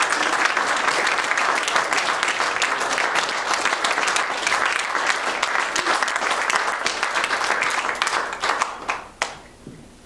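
A room full of wedding guests applauding: many hands clapping densely and steadily, thinning out near the end to a few last claps before it stops.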